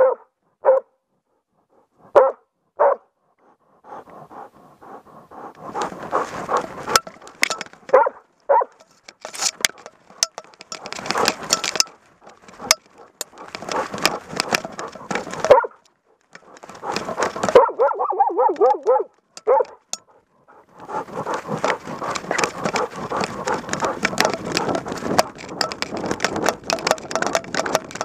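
A moose-hunting dog barks close to a camera strapped to its body. Separate short barks come in the first few seconds. After that, long spells of rapid barking run together with the rustle of the dog moving through brush.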